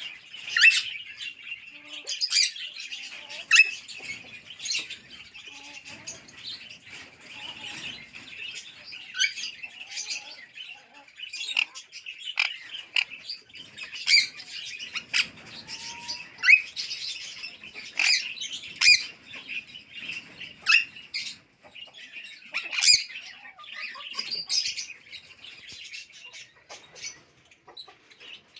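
Caged Alexandrine parakeet giving many short, sharp squawks and chirps at irregular intervals.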